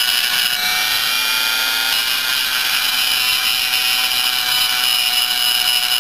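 High-speed rotary tool spinning a 1/8-inch single-cut carbide burr, cleaning up the transfer port of a Yamaha Blaster two-stroke aluminium cylinder. It makes a steady high whine with the rasp of the burr cutting metal.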